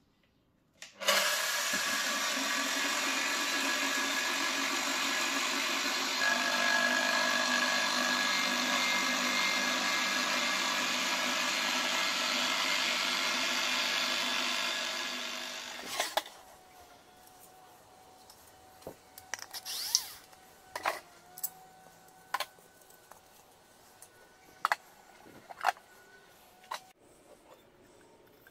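Angle grinder with a frying pan mounted on its spindle, switched on about a second in and running steadily at speed for about thirteen seconds, then switched off and spinning down. Scattered light knocks and clicks follow.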